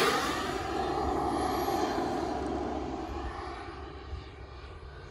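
Model turbine jet engine of a scale Grumman F9F Panther RC jet, its roar and whine fading steadily as the plane flies away just after a close pass overhead. The high whine falls in pitch as it recedes.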